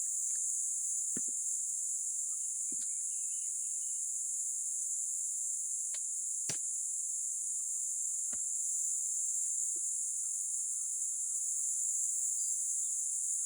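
Steady high-pitched drone of insects, like crickets, with a few scattered sharp clicks.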